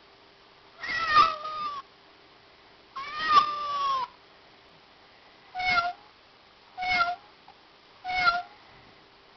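Recorded cat meows played from a "Cat Sounds" app through a phone's speaker: two long meows, then three short, identical meows a little over a second apart.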